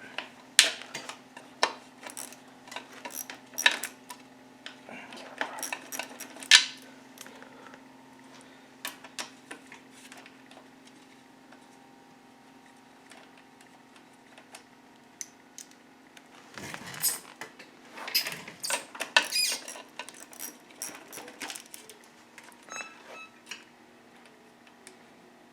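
Hand tools clinking and clanking against metal engine parts in short, irregular bursts, busiest at the start and again about two-thirds through, over a steady low hum.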